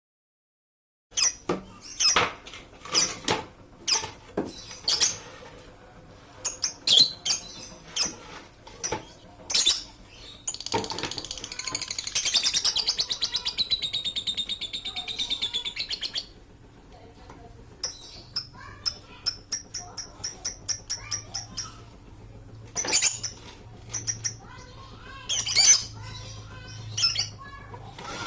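Pet lovebirds chirping in short, sharp, repeated calls that start about a second in. About eleven seconds in there is a run of fast, continuous chattering lasting some five seconds.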